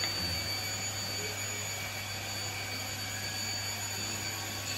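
Steady rushing hum of a running machine, with a constant low hum and a faint high whine.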